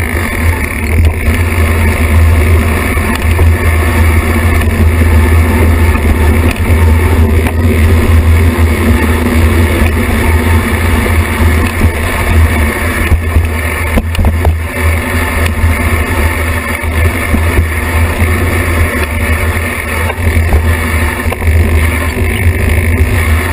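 Steady loud rumble of a mountain bike descending dirt singletrack, picked up by a camera mounted on the bike: trail and tyre rattle mixed with wind on the microphone, strongest as a deep low rumble.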